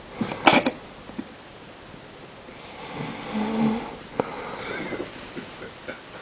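A sleeping man snoring: a short, sharp snore about half a second in, then a longer drawn-out snore around three seconds in.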